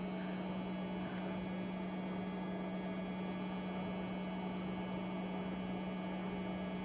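Steady low electrical hum: one strong droning tone with fainter higher overtones, unchanging.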